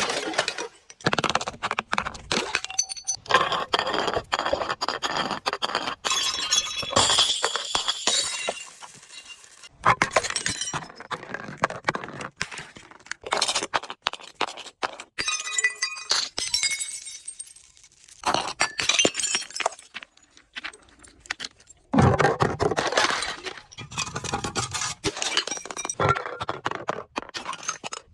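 Glass bottles being crushed and smashed: dense crunching and cracking of glass, with shards clinking and ringing. The sound comes in bursts with short pauses between them.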